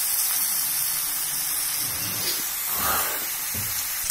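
Raw chicken pieces sizzling in hot oil with onions and tomatoes in a pressure cooker base, a steady hiss. From about two seconds in, a steel ladle stirs and scrapes the pieces around the pot.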